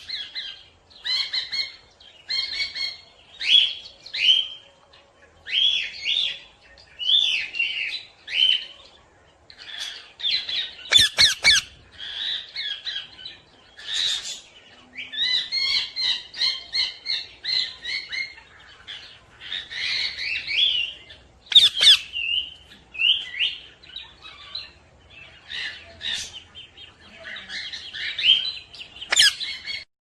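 Parrots chattering: a steady run of short chirps, squawks and warbling calls, with a few sharp clicks scattered through.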